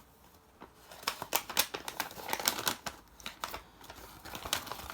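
Packaging being handled and unwrapped, crinkling and crackling in quick, irregular clicks that are busiest about a second or two in.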